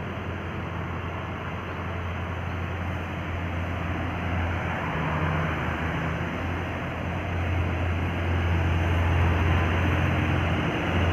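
A heavy vehicle's engine pulling up a climb, a low steady rumble with road noise that grows gradually louder as it approaches.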